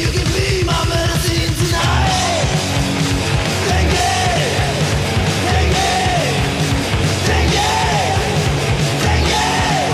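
Loud rock band recording with drums, bass, electric guitar and shouted vocals. The song changes to a new section about two seconds in.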